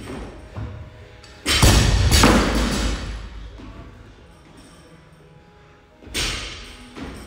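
Heavy thuds of feet landing during weighted box step-ups on a wooden plyo box: two thuds about four and a half seconds apart, the first, about a second and a half in, the louder. Quiet background music underneath.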